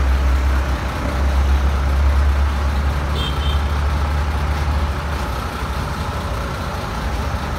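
Heavy diesel engine idling with a deep, steady rumble that eases about five seconds in, over road traffic noise. A short, high double beep sounds about three seconds in.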